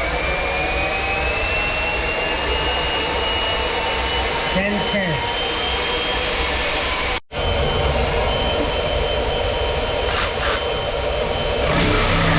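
Electric motor running steadily with a high whine over a rushing hiss, its pitch rising slightly as it comes up to speed at first. The sound cuts out for an instant about seven seconds in and then carries on.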